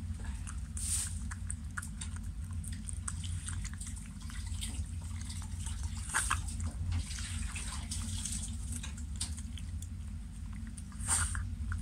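Shiba Inu eating soft mousse-topped cake from a bowl: irregular wet licking and chewing clicks, louder about a second in, around six seconds in and near the end, over a steady low hum.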